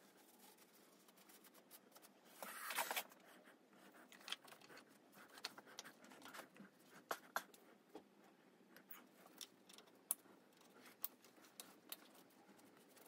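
Faint scattered clicks and scraping from gloved hands refitting parts and connectors in a motorcycle engine bay, with a short scraping rustle about two and a half seconds in.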